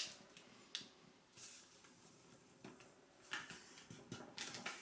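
Faint rustles, clicks and short scrapes of a square of origami paper being folded diagonally and creased flat under the fingertips, coming in scattered brief bursts.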